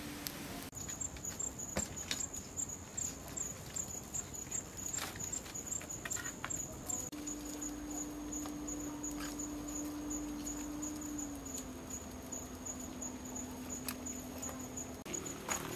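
Wood fire crackling with scattered sharp pops, over a steady, high, rapidly pulsing insect trill.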